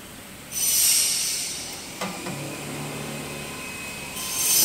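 CNC router's axis drive motors jogging the gantry and spindle head. A hissing whine starts suddenly about half a second in and fades, a steadier low hum follows in the middle, and a second hissing whine rises near the end.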